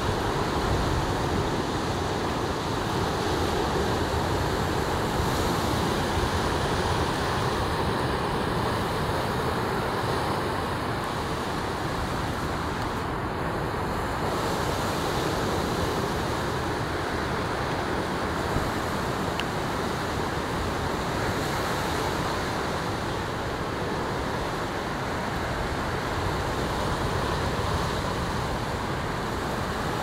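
Ocean surf washing steadily, with some wind noise on the microphone.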